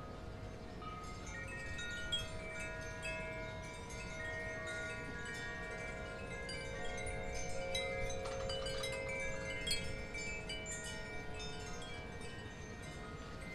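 Wind chimes ringing: many overlapping notes at different pitches, struck at irregular moments and busiest around the middle, over a low steady background hum.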